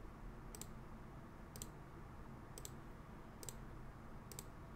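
A computer mouse clicking, five short sharp clicks about a second apart, entering characters one at a time on an on-screen keyboard.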